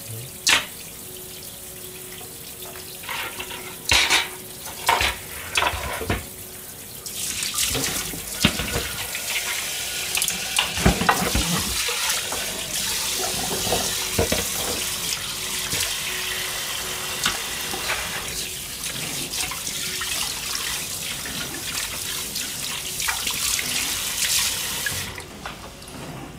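Washing up at a stainless steel kitchen sink: dishes and a pan knock and clink during scrubbing. About seven seconds in the tap comes on and runs steadily while things are rinsed under it, with more clinks, and it shuts off near the end.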